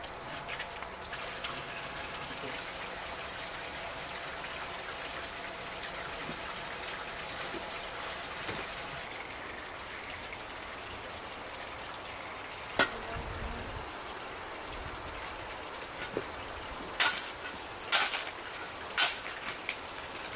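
Steady outdoor background hiss. There is one sharp knock about two-thirds of the way through, then several more sharp knocks about a second apart near the end.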